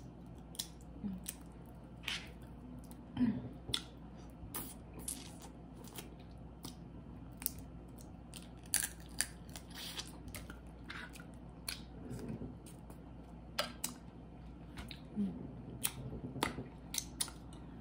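Close-miked eating of a seafood boil: wet chewing, biting and lip smacks, with shells and food being handled, heard as irregular sharp clicks and squishes.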